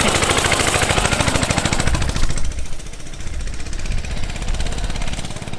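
An engine running with a rapid, even chatter; the high hiss fades about two and a half seconds in while the low running sound carries on.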